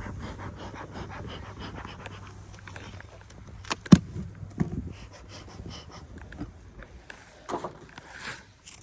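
A person breathing heavily close to the microphone, with a single sharp knock about four seconds in.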